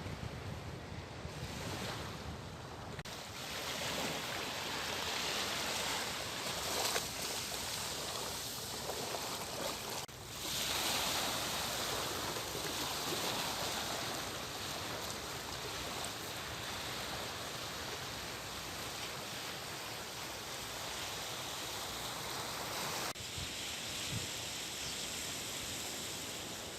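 A steady rushing noise with no tones in it, changing abruptly a few times.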